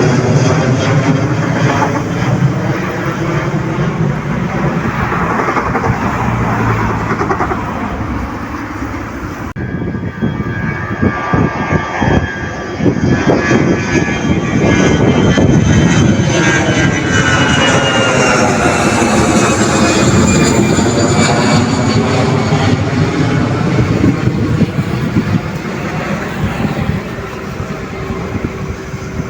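Airliner engines passing close by, a loud steady rush with a high whine that glides down in pitch as the aircraft goes past. The sound changes abruptly about ten seconds in.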